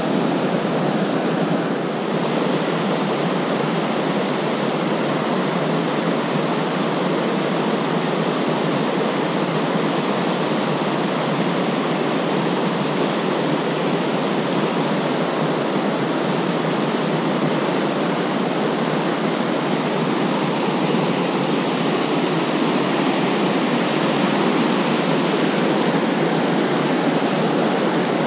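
Steady rushing of whitewater pouring over a rock ledge and through river rapids.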